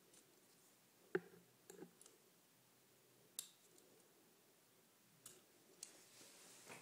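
About half a dozen faint, scattered clicks of a small hand tool against the work surface as polymer clay is cut and shaped. Between them there is near silence.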